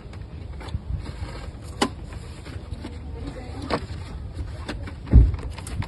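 Hand tools at work on the engine of a Chevy Silverado 5.3 as the crankshaft is turned by hand to walk a new serpentine belt onto its pulleys: a low rumble, a few sharp metallic clicks, and one heavy thump about five seconds in.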